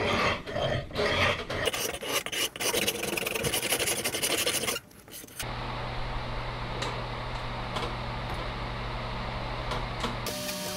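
The side of a steel file dragged across a wooden hatchet handle, scraping off its thick old finish in repeated rasping strokes. The strokes stop briefly about five seconds in, then go on more steadily.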